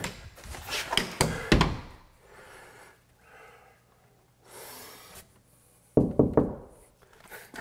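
Newly installed pre-hung interior door being swung and pushed shut in its jamb: several wooden knocks and thunks in the first couple of seconds, then a few more knocks about six seconds in.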